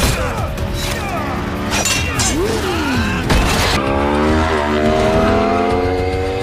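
Motorcycle engines revving hard in a high-speed chase, the engine pitch climbing steadily through the second half, with a few sharp hits and music underneath.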